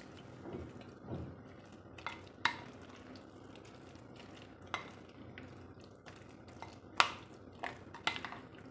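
A metal utensil stirring a thick, wet besan batter with chopped vegetables in a glass bowl: soft wet mixing with sharp clinks of the utensil against the glass, a few spread out and several close together near the end.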